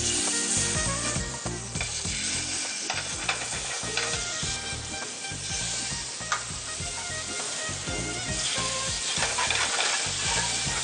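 Marinated paneer pieces and a buttered burger bun frying in hot pans: a steady sizzle, with a few short spatula taps and scrapes.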